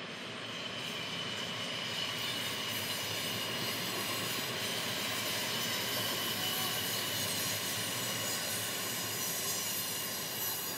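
NS yellow-and-blue double-deck electric passenger train running past at speed, a steady rolling rumble that swells about a second in and holds. A high steady tone rides above it through the middle of the pass.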